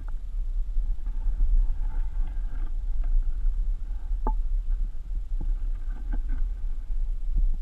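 Muffled low rumble of water movement and handling heard through a GoPro's waterproof housing held underwater, with a few sharp clicks or taps, the clearest a little past the middle.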